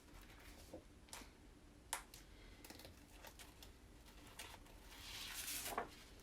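Faint scattered clicks and taps of small craft supplies being handled on a table, with a brief rustle about five seconds in.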